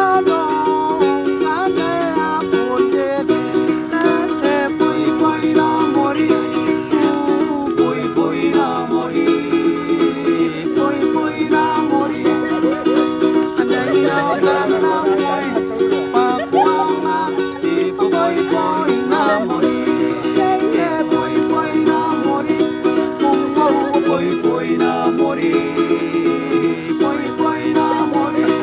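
Music: a strummed ukulele playing steady chords, with a wavering melody line over them.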